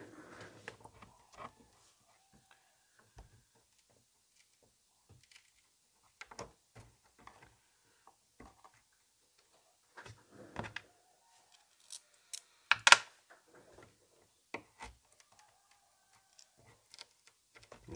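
Scattered light clicks and scrapes of a thin metal tool prying at a stuck chassis fixing screw and its washer in the bottom of an old radio cabinet, with a sharper cluster of scrapes about thirteen seconds in.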